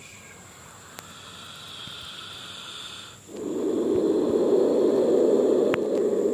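King cobra growling: a faint, higher hiss for the first three seconds, then a loud, low growling hiss sets in about three seconds in and holds steady.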